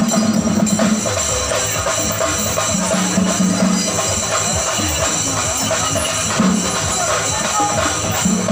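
Festival procession music, loud and steady: drums and jingling cymbals beating continuously, with a held low note that comes and goes.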